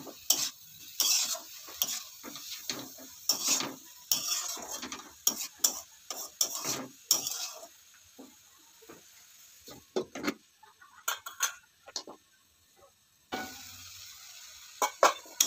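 Metal spoon stirring and scraping vegetables frying in a pan, with clinks against utensils and a sizzle. The strokes thin out past the middle, and a steady hiss of frying comes up near the end.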